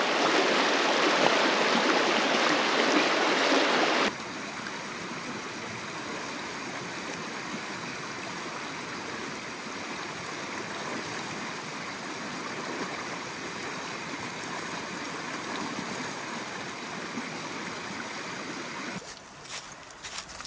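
The West Fork of the Gila River flowing, a steady rush of water. About four seconds in, it drops abruptly to a quieter, even flow. A few sharp knocks come near the end.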